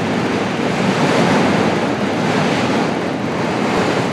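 Subway train running: a loud, steady rushing noise with no distinct clanks or tones.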